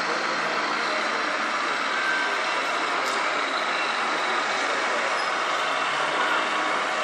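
Engine sound of a radio-controlled model Scania R500 heavy-haulage truck, played by its on-board sound module through a small speaker as it drives, over steady background noise. There is a short click about 3 seconds in.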